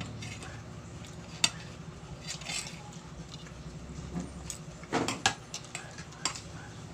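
Cutlery clinking against a plate a few sharp times, with softer eating and chewing noises between.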